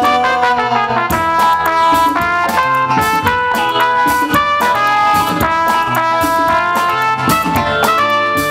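Live band playing an instrumental break in a Hindi film song: a sustained melody line over a steady beat from drum kit and hand percussion, the drums coming in strongly about a second in.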